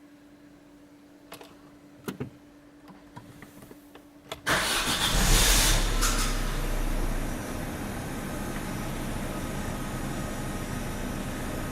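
Opel Astra H 1.6 Twinport four-cylinder petrol engine started: a steady hum and a few clicks, then about four and a half seconds in it cranks and catches with a loud flare of revs that settles into a steady idle. This is the start-up noise the owner is asking about.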